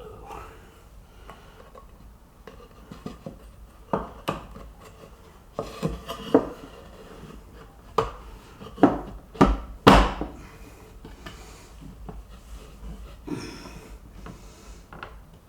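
Wooden toe-kick boards being knocked and pushed into place onto their clips under kitchen cabinets. There is shuffling, then a run of about eight sharp knocks from about four seconds in, the loudest near ten seconds.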